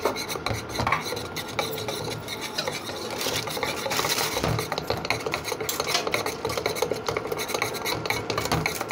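A spoon beating and stirring a wet mixture of egg yolk, sauces and cornflour in a bowl, a fast, continuous run of scraping clicks against the bowl as the cornflour is worked in so it won't form lumps.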